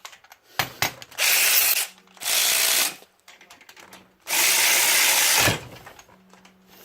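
Harbor Freight Earthquake 12-volt cordless ratchet running in three short bursts, each cutting out after about a second or less. It stops even with the trigger held all the way, which the owner takes for a defective unit with a faulty button.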